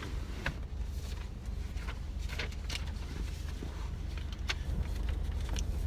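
Car engine idling, heard from inside the cab as a steady low hum, with a few faint clicks and light traffic noise.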